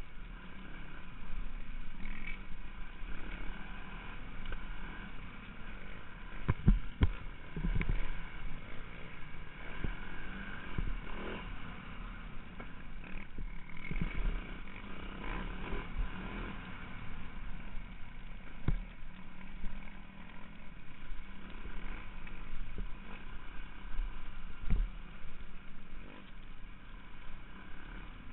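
Single-cylinder four-stroke enduro motorcycle running on a forest trail, heard from the rider's helmet: steady engine drone under varying throttle over a low rumble, with sharp knocks and clatter from the bike hitting bumps.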